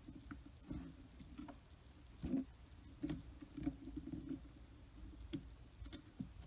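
Irregular light clicks, ticks and dull bumps of tools and small parts being handled during soldering work on a radio circuit board.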